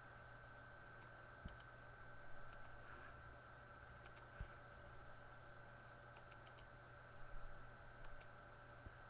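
Near silence with scattered faint clicks of a computer mouse and keyboard: single clicks, quick pairs and one run of four, over a steady low electrical hum.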